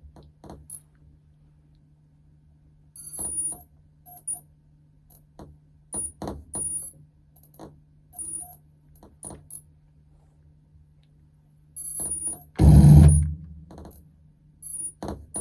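Electronic noise from a chain of noise and effects pedals: a steady low hum under sparse glitchy clicks and high, chirping blips, then a loud harsh burst of distorted noise about two thirds of the way through.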